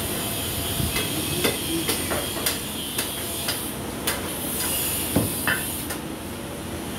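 Butcher's cleaver chopping mutton in a steady run of sharp strikes, about two a second, which stop a little after five seconds in.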